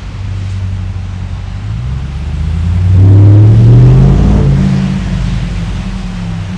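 2021 RAM TRX's supercharged 6.2-litre V8 running, rising in pitch and loudness about two seconds in to a peak, then easing back down.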